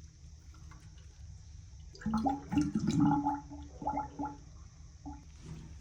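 Water gurgling in a kitchen sink drain line that is being cleared with a drain snake, in an irregular burst starting about two seconds in and lasting about two seconds.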